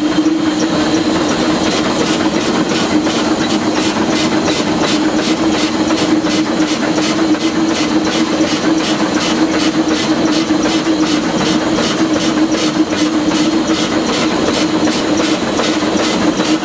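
Westside Lumber No. 12, an oil-fired Shay geared steam locomotive, running as heard from inside its cab: a rapid, even beat over a steady drone.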